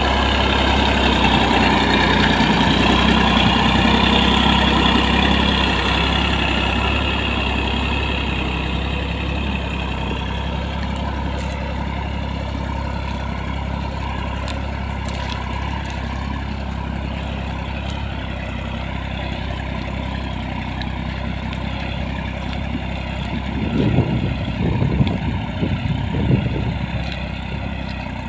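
Massey Ferguson 9500 Smart 58 HP tractor's diesel engine running steadily under load while pulling a mouldboard plough, loudest at first and fading as the tractor moves away. A few irregular low thumps come near the end.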